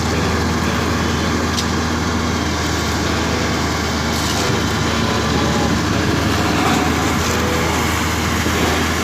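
Heavy road-construction machine running steadily with a constant low diesel hum and a few faint knocks.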